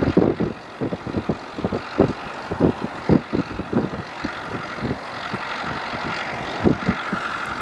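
Wind buffeting the microphone in irregular gusts over the steady running of a Ford tractor's diesel engine as it pulls a plough. The engine note comes through more clearly in the second half, when the gusts ease.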